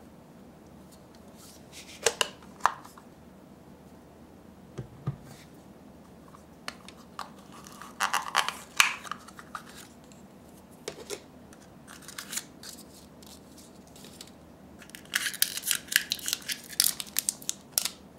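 Handling of a drink can's plastic capsule cap and its prize packaging: a few sharp plastic clicks, then rustling of paper and card, and a dense run of crinkling from a clear plastic wrapper near the end.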